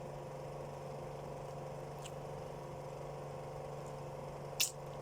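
A steady low mechanical hum, with a single short click near the end.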